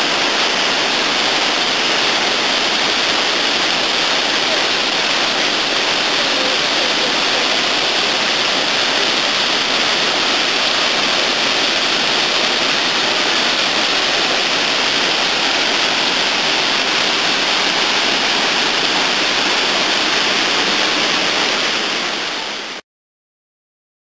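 Mountain creek at peak spring snowmelt runoff, a steady rush of whitewater pouring over boulders. It fades and cuts off near the end.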